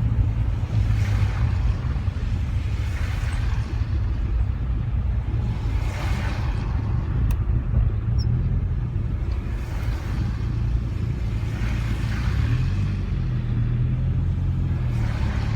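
Rover 45 heard from inside its cabin: a steady low engine and road rumble, with a soft swishing swell every two to three seconds.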